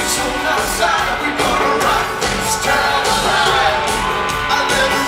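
Live pop concert: a singer with a band playing over a steady beat, with shouts and whoops from the crowd, heard from among the audience.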